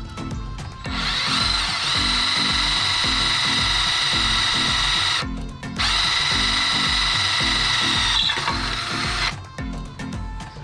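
Electric drill running at a steady pitch in two long runs of about four and three and a half seconds, with a short stop between, boring the bolt holes for a hydrofoil fin on an outboard motor.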